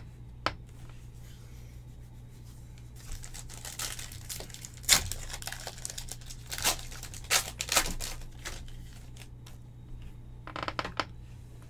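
A foil trading-card pack being torn open and crinkled by hand: a string of sharp crackling tears, loudest about five seconds in, with a brief rustle near the end. A steady low hum runs underneath.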